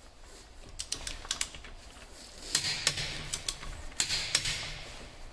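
Socket ratchet wrench on a wheel bolt, clicking as its handle is swung back and forth, in three short runs of sharp clicks.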